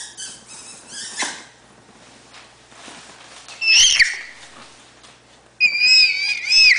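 Baby's high-pitched squeals: a short one about halfway through and a longer, wavering one near the end, with softer little vocal noises in the first second.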